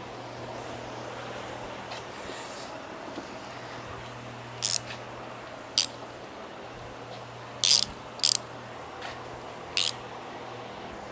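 Ratchet wrench clicking in five short bursts as a bolt is worked loose, over a steady low hum.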